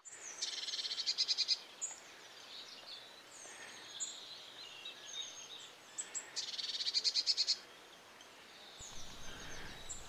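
Small birds singing: two loud bursts of rapid, trilled high-pitched song about six seconds apart, with quieter scattered chirps between them.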